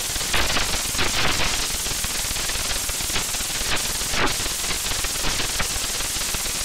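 Loud crackling static with irregular sharp pops and clicks over a steady hiss, a distorted glitch-noise effect.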